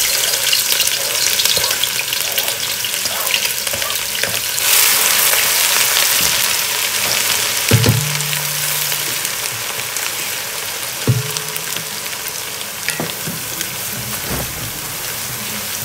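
Onions, garlic and hot pepper sizzling in hot oil in a pot, steady and loudest at first, easing off gradually. Two short knocks come about halfway through and again a few seconds later.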